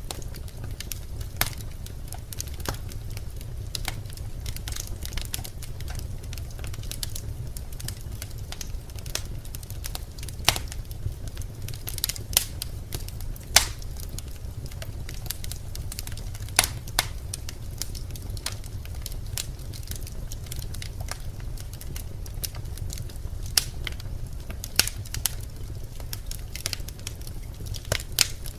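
Birch logs burning in a fireplace: a steady low rumble of the flames with continual fine crackling and sharp, irregular pops from the wood.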